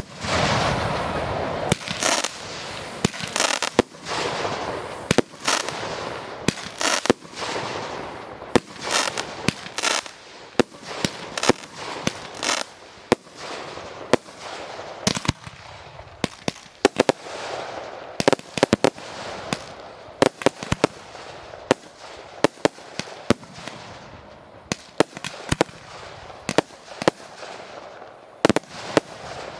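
Fireworks display: a dense run of sharp bangs from bursting shells, several a second, with crackling between them.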